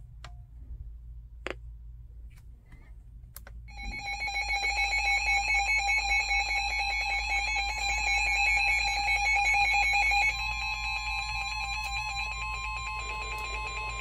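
A few button clicks on a Midland weather radio, then about four seconds in several NOAA weather radios sound their alert alarms together, a loud steady electronic multi-tone, signalling a Special Marine Warning. Around ten seconds in part of the sound stops, leaving one steady high tone.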